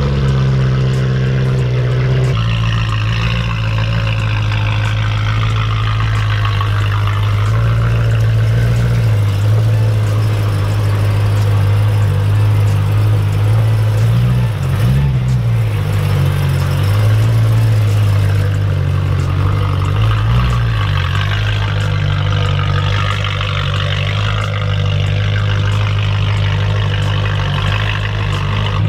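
V8 sports car exhaust running loud at low revs, a steady low drone. The pitch briefly swings up and down twice, about halfway through and again a few seconds later.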